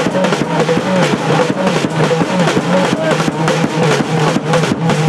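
Loud drum-led music with a fast, dense beat, a wavering melody line riding over it and a steady low tone underneath.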